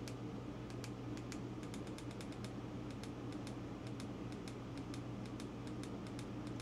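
Keypad buttons of a Baofeng handheld radio clicking as the arrow key is pressed over and over, a quick, irregular run of small clicks stepping through the radio's menu settings. A steady low hum sits underneath.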